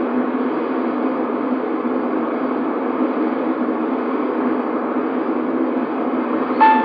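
Steady loud hiss of analog radio noise from the horn loudspeakers of an outdoor disaster-prevention radio system, the channel open just before the noon chime plays. The first note of the chime melody sounds right at the end.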